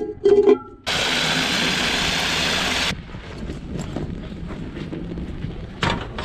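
Water running from a tap into an empty metal cooking pot for about two seconds, starting and stopping abruptly. Near the end, a clank as the pot is set down on a portable gas stove.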